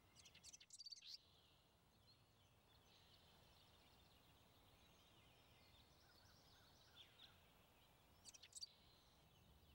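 Near silence, with faint, brief high chirps in the first second and again near the end.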